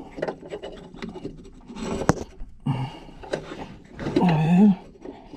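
A man grunting and straining with effort while forcing an LED fog light bulb into its housing. There is rattling handling noise and a sharp click about two seconds in.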